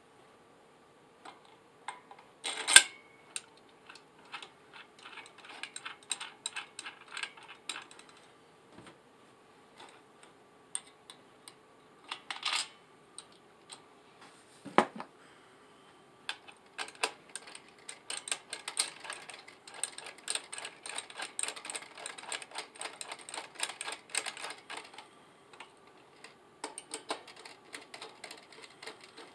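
Metal parts of a ClearStream TV antenna being assembled by hand: scattered small clicks, knocks and rattles of the wire element and mounting bracket, with a sharper knock about three seconds in. In the second half comes a long run of rapid clicking as a screw is driven tight with a screwdriver.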